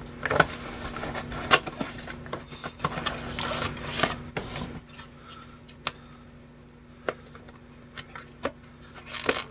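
Small cardboard boxes handled and slid open over a cardboard sheet: irregular rustling, scraping and sharp taps for the first five seconds or so. It then goes quieter, with a few isolated small clicks, over a steady low hum.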